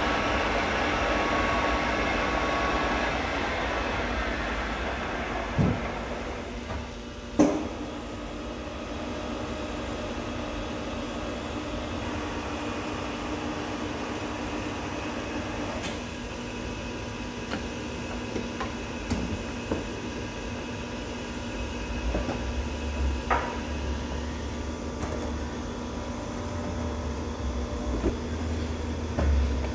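1950s SIP Hydroptic No 6 jig borer face-milling the top plate of a welded stand with a six-cartridge milling head at 310 RPM. Steady machining noise with a steady hum, louder and harsher for the first few seconds, then quieter; two sharp knocks at about six and seven and a half seconds, and scattered small clicks.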